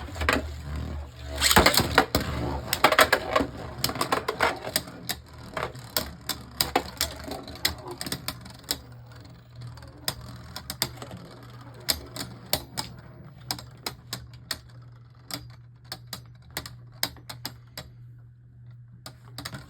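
Beyblade Burst spinning tops clashing in a plastic stadium: a fast, irregular run of sharp plastic clicks and knocks as the tops collide and skid, loudest just after the launch and growing sparser near the end as they slow down.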